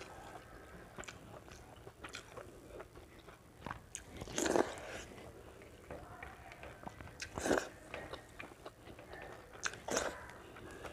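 Close-up chewing and mouth sounds of a person eating rice and curry by hand, with many small clicks and three louder bites spaced a few seconds apart.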